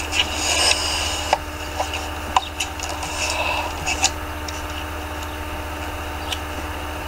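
Scattered small clicks and rubbing handling noises over a steady low electrical hum.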